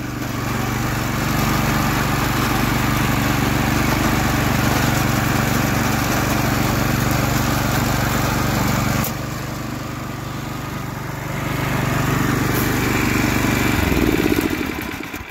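Small single-cylinder gasoline engine of an early Ariens 10000-series walk-behind snowblower running steadily while the machine is driven and steered over gravel with its differential locked. Near the end the engine is shut off: its pitch falls and the sound dies away.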